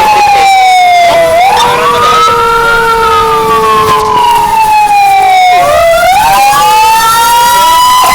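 Fire engine sirens wailing loudly, heard from inside the cab, in slow sweeps that fall and rise over a few seconds. Two or more siren tones overlap.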